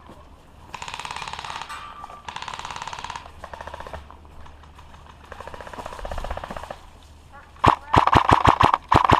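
Airsoft electric guns firing: several rapid full-auto bursts, each one to one and a half seconds long. Near the end comes a louder, closer string of quick shots, about six a second.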